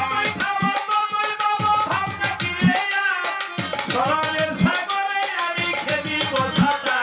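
Bengali Baul folk song performed live: a man sings into a microphone over hand-drum accompaniment. A deep drum stroke that slides down in pitch lands about every two seconds.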